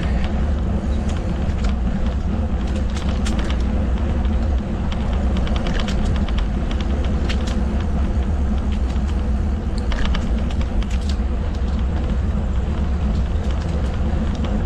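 Steady wind rumble on the microphone of a moving mountain bike, with scattered light clicks and rattles from the bike as it rolls over the trail.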